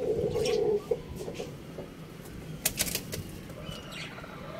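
Chickens in a wire coop: a low clucking sound lasting just under a second at the start, then a quick flurry of wing flaps about two and a half seconds in.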